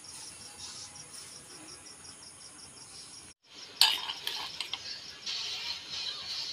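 Faint steady chirping of crickets, repeating several times a second; after a short break, a metal spoon clinks and scrapes against a metal bowl and the pan while spice paste is spooned onto the fish, with a sharp click at the start the loudest sound.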